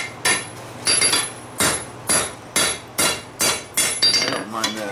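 Hand hammer striking red-hot steel on an anvil, about two blows a second, each with a short metallic ring, as the bar is bent into a hook over the anvil's horn and face.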